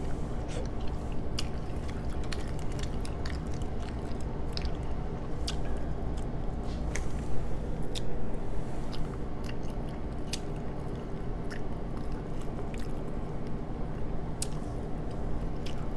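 Close-up eating sounds of king crab meat: chewing with wet mouth noises, and scattered small clicks and crackles as the meat is pulled from the shell by hand. A steady low hum sits underneath.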